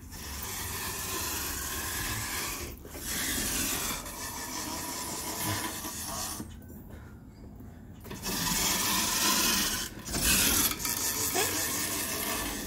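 Rubbing and rustling noise on the phone's microphone as it is carried while walking: a steady rasping hiss, broken off briefly a few times.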